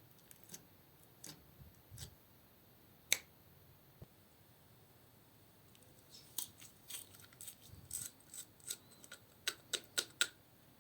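Sharp small clicks and snaps from makeup and its plastic cases being handled and broken up: a few scattered ones at first, then a quick irregular run of them in the second half.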